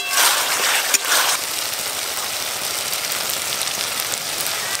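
Onion, tomato and yogurt spice paste sizzling and bubbling steadily in hot oil in a wok as it is fried down for a fish kalia, with two light clicks in the first second or so.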